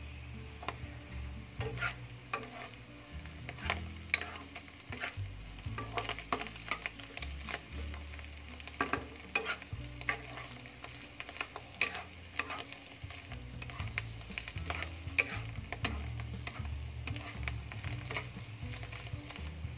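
Diced ham and mushrooms frying in a nonstick wok, stirred with a wooden spatula that scrapes and taps the pan in frequent irregular clicks over a steady sizzle.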